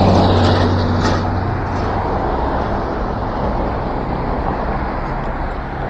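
Steady wind and road noise from riding in traffic, with a motor vehicle's engine hum alongside that fades away over the first couple of seconds.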